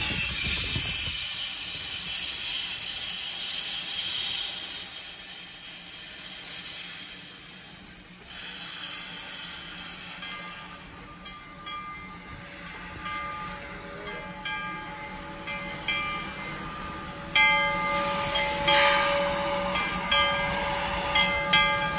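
Narrow-gauge steam locomotive moving slowly, hissing loudly as steam blows from the front of its cylinders, the hiss dying down after about eight seconds. After that, thin metallic squealing tones and sharp clanks come from the running gear and wheels as it rolls on.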